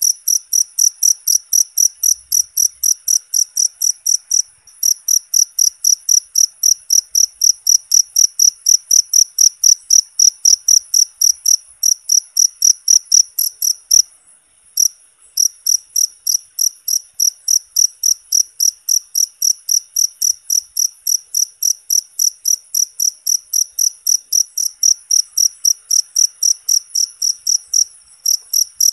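Cricket chirping loudly and steadily, about three or four high, crisp chirps a second, with one pause of about a second midway.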